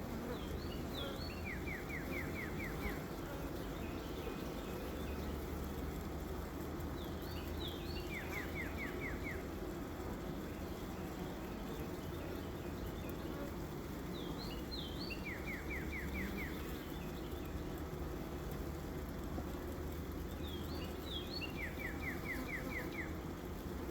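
Steady hum of a mass of honeybees from a freshly opened nuc being transferred into a hive. A bird sings the same short song four times over it, about every six seconds: a couple of high notes, then a quick run of about six lower notes.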